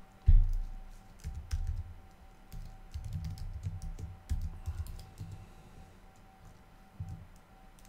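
Typing on a computer keyboard: irregular keystrokes, each a click with a dull thud, the first about a quarter second in the loudest, with a lull after about five and a half seconds and one last keystroke near seven seconds.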